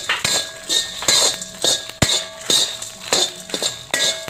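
Steel spatula scraping and clinking against an iron kadai as dry-roasting dal, spices and grated coconut are stirred, about three quick strokes a second, with the pan ringing faintly under them.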